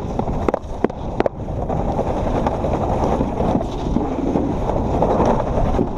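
Alpine slide sled running down the track: a steady rumble of the wheels in the trough with wind buffeting the microphone, and a few sharp clicks in the first second or so.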